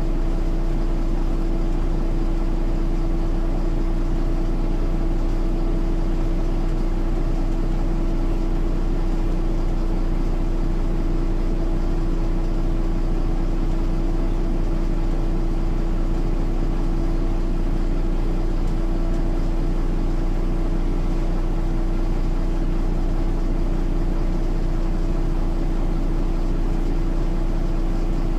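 MAN NL202 city bus's D08 diesel engine running steadily, its hum holding one unchanging pitch throughout.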